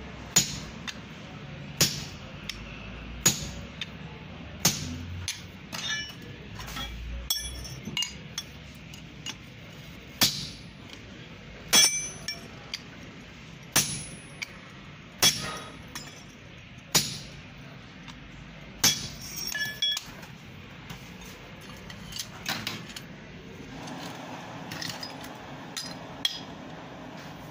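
Hand hammer blows on red-hot iron at an anvil, splitting the bar with a hot chisel and then working the split ends. Sharp metallic strikes come about every second and a half, each with a short clinking ring, with a few quicker, lighter blows between.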